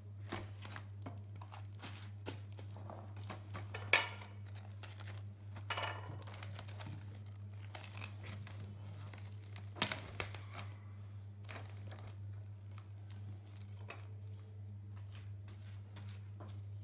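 Plastic cling film crinkling and tearing as it is pulled and pressed over a bowl, in many short crackles, the sharpest about four seconds and ten seconds in. A steady low hum runs underneath.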